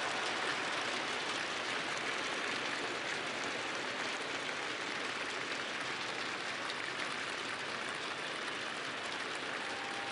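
Large crowd applauding steadily, a sustained ovation that eases slightly toward the end.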